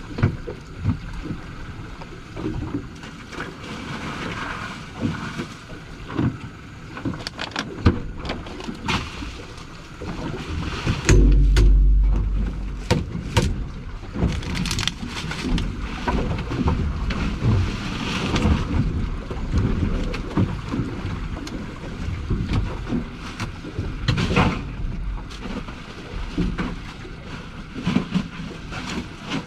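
Boat on open water, with wind buffeting the microphone and many scattered knocks and clatter. A heavy gust hits the microphone about eleven seconds in.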